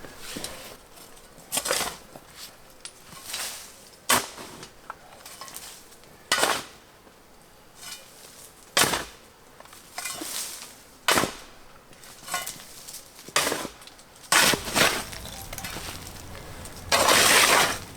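Sharp knocks and clinks of hard objects, one every second or two, with a longer, louder scraping rush near the end.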